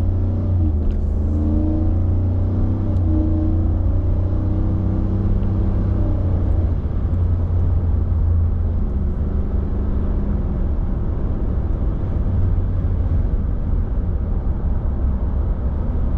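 The 5.0L Coyote V8 of a 2023 Ford F-150 running through its stock exhaust. Its note wavers up and down over the first several seconds, then turns to a steady low noise. Wind buffets the microphone throughout.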